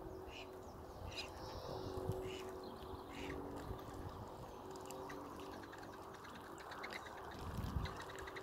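Ducks calling around a pond over an outdoor background hum, with scattered short high calls and a rapid run of short high notes near the end. A low bump near the end.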